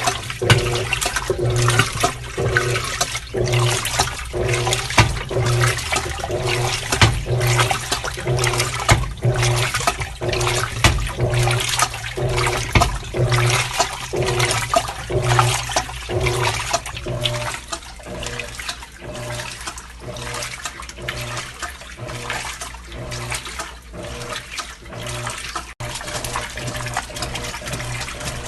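Electrolux LAC12 washing machine on its rinse cycle, churning the water and clothes. Each stroke brings a surge of sloshing water and a low hum, about every two-thirds of a second, growing quieter past the middle.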